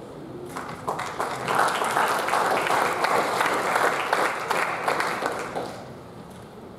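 Audience applauding: the clapping starts about half a second in, swells, and dies away about a second before the end.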